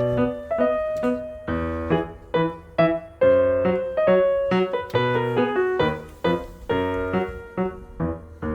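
Background piano music: gentle struck chords and melody notes, each ringing and fading.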